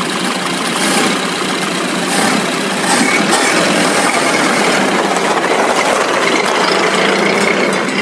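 Large truck engine running steadily, a sound effect that starts abruptly.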